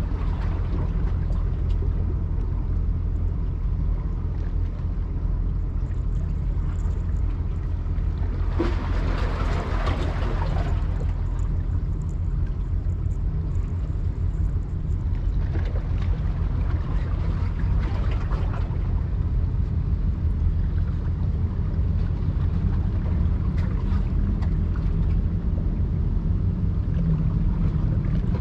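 Steady low engine rumble of a boat, with a rushing, splashing noise that swells twice, about nine and sixteen seconds in.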